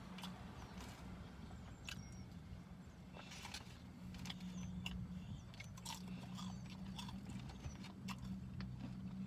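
Close-up chewing and biting of chicken wings, with scattered wet mouth clicks and smacks throughout, over a steady low hum.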